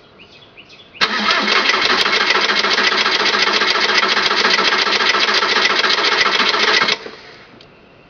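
Starter cranking the 2002 VW Jetta TDI's 1.9-litre four-cylinder turbodiesel for about six seconds, a fast, even pulsing that starts abruptly and cuts off without the engine catching: the hard-start condition.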